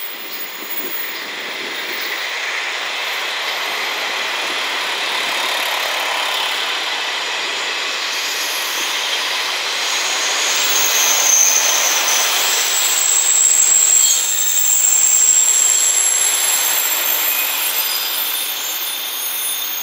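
KiHa 40-series diesel railcar train running past: steady rolling noise of wheels on rail that grows louder about halfway through. Thin high squealing joins in from about halfway on.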